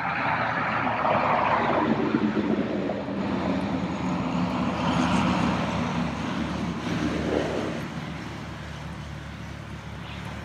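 Light single-engine propeller airplane's engine and prop running on the ground, rising in loudness right at the start and fading over the last few seconds.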